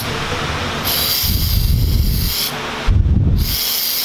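Aerosol can of volatile engine cleaner spraying onto water in a bowl: a hissing spray lasting about a second and a half, then a second, shorter burst near the end, with low rumbles underneath.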